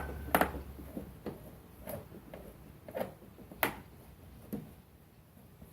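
Fasteners being worked out of a car's fender with hand tools: about seven sharp clicks and knocks at irregular intervals, stopping after about four and a half seconds.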